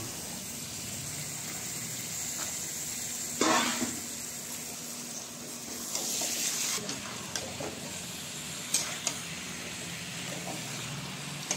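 Raw chicken pieces sizzling in hot masala in a kadai while being stirred, with a metal spatula scraping and clattering against the pan; the loudest scrape comes about three and a half seconds in, with a few sharp knocks later on.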